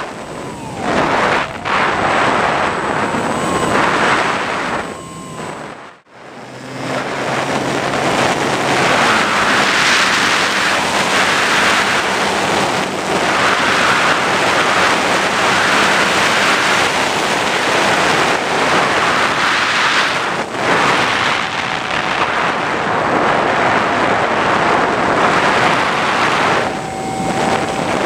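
Loud, steady wind rush over the onboard camera of a Skywalker RC plane in flight. It breaks off sharply for a moment about six seconds in.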